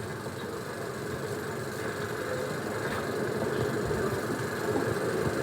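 A steady, rumbling background noise, like a distant engine, that slowly grows louder.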